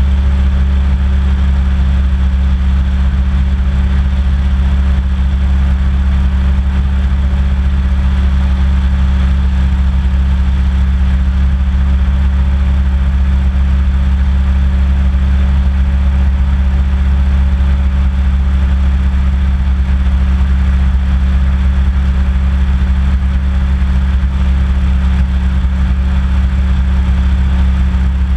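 Hovercraft engine and lift/thrust fan running at a steady cruise: a loud, even low drone that holds the same pitch throughout.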